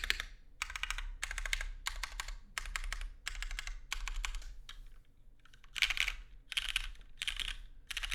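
Fast typing on a Matrix 8XV 2.0 OG anodized-aluminium mechanical keyboard with Cherry MX Black linear switches on 62 g springs and GMK keycaps: rapid keystrokes in short bursts, a brief lull about five seconds in, then a few louder bursts near the end.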